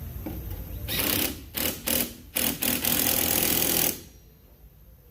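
Power tool run in four short bursts and then one longer burst of about a second and a half, tightening a fastener on the refitted wiper arms.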